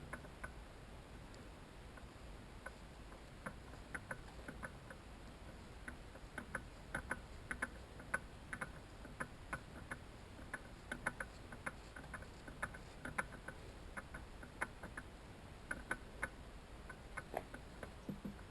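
Irregular light clicks and taps, several a second at times, as bicycle bearing parts are handled and fitted into the bottom bracket.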